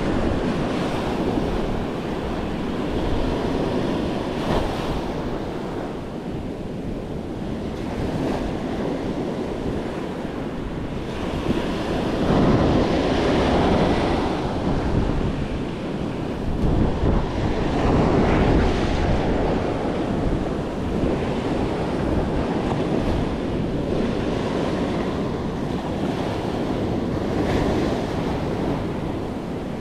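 Surf breaking and washing up a sandy beach, with wind buffeting the microphone. The wash swells louder twice near the middle as bigger waves come in.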